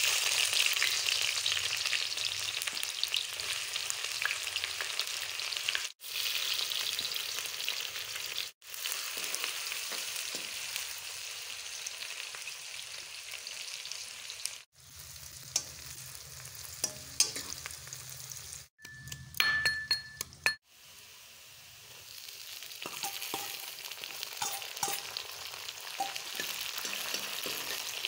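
Sliced onions sizzling in hot oil in a steel kadhai, with a metal ladle stirring and now and then clinking against the pan. The sizzle breaks off briefly several times.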